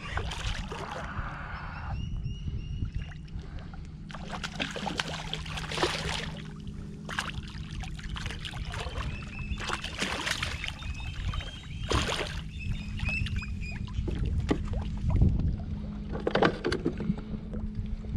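A hooked grouper splashing and thrashing at the surface beside a kayak, with repeated sharp splashes and knocks. Under it runs the steady low hum of an electric trolling motor.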